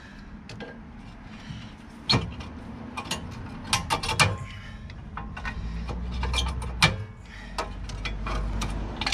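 Pliers working the springs and fittings of a Peugeot Boxer's rear drum brake shoes: a run of irregular sharp metal clicks and clinks, loudest about two seconds in, near four seconds and near seven seconds, over a low rumble in the second half.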